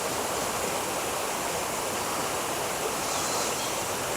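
River water rushing steadily, an even continuous wash of flowing water.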